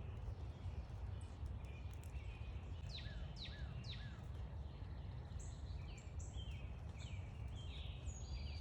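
Backyard songbirds calling over a steady low background rumble: three quick downslurred whistles about three seconds in, then a run of short, high chirps.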